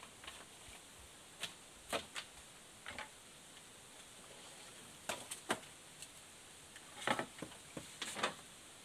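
Irregular knocks and clatters of bamboo poles being handled, about ten sharp taps, closest together near the end.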